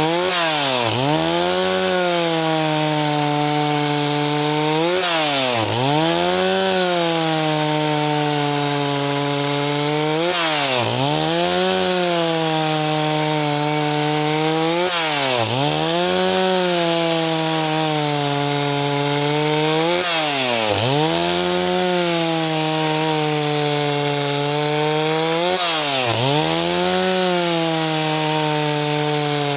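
Stihl 038 two-stroke chainsaw running at high revs. About every five seconds the engine pitch dips sharply and climbs back.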